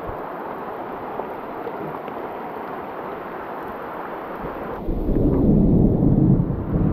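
Steady hiss of rain falling. About two-thirds of the way through, a loud low rumble sets in and covers the higher hiss.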